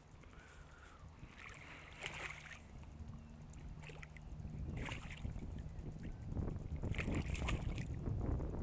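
Low wind rumble on the microphone, growing louder toward the end, with scattered short rustling and handling noises.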